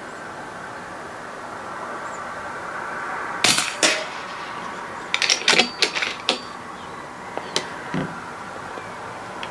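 Sharp mechanical clicks and clacks of an air rifle being handled: two loud clicks about three and a half seconds in, a quick run of clicks a second or so later, and two more single clicks near the end.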